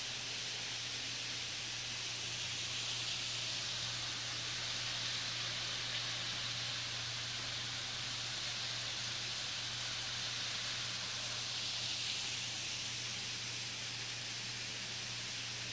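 Steady rushing hiss of a distant waterfall, with no breaks or distinct events.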